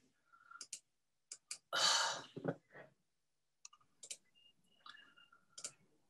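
Scattered computer mouse clicks, about a dozen, with a breathy exhale into the microphone about two seconds in, the loudest sound here.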